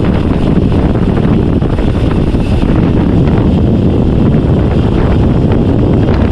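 Loud, steady wind rushing over the microphone of a road bike descending at speed.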